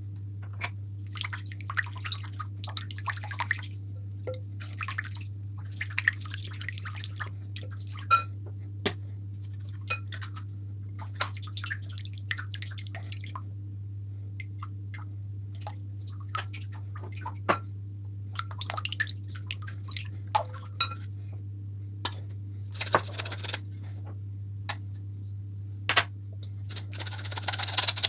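A silicone spatula stirring and scraping a milk and yeast mixture in a glass bowl, in repeated stretches of a few seconds, with light clicks of the spatula and small bowls against glass. A steady low hum runs underneath. Near the end comes a louder rushing scrape as flour is tipped into the bowl.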